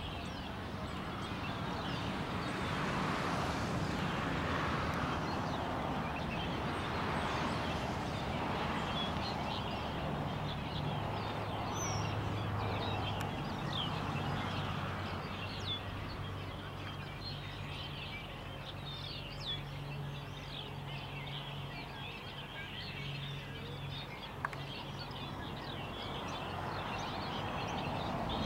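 Outdoor ambience: many small birds chirping, with a soft noise that swells and fades, and a steady low hum that comes in about a third of the way through.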